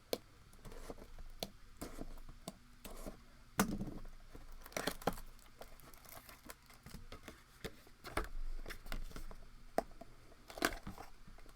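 Plastic wrapping on a trading-card box being torn open and crinkled by hand, with irregular sharp crackles.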